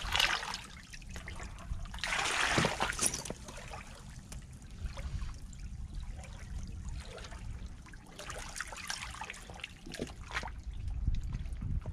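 Shallow seawater washing and trickling over coral rubble at the water's edge, in several rushing swells, the strongest about two seconds in, over a steady low rumble.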